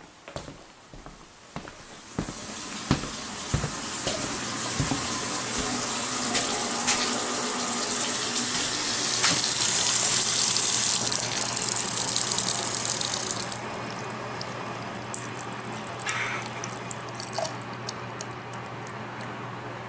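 Water running hard from an open faucet as air is bled out of the household lines after a well pressure tank replacement. The rush builds from about two seconds in, then drops off sharply past the middle, leaving a lower steady flow with a low hum and light clicks.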